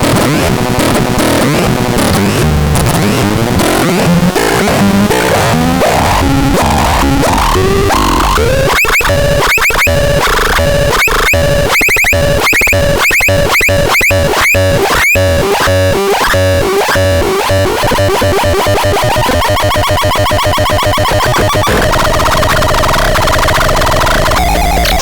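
Harsh electronic sound effects from an ASMAR C1002TN sound device, with noise throughout. The tones first step upward in pitch, then give way about eight seconds in to fast pulsing with quick rising chirps, and then to steady buzzing tones that shift again near the end.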